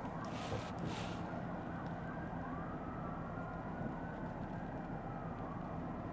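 Steady road and engine rumble heard from inside a Lexus ES 350 sedan on a wet road, with a faint siren wailing slowly up and down in the distance. Two brief swishes come near the start.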